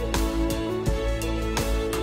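Background music with sustained instrumental notes over a steady beat.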